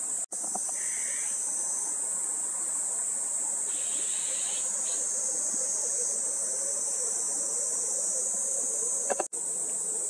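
Cicadas droning in a steady, high-pitched chorus, with two brief dropouts, one just after the start and one near the end.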